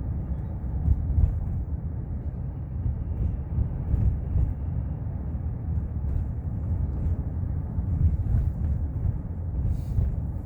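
Wind buffeting the microphone outdoors: a constant low rumble that swells and eases.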